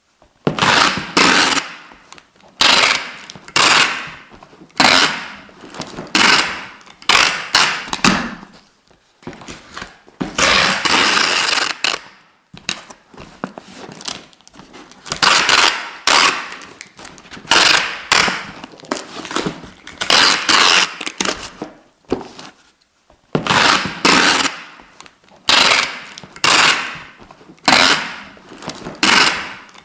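Adhesive tape being pulled off the roll in repeated strips, each pull a noisy rip of about a second, coming roughly once a second, with one longer pull of about two seconds near the middle.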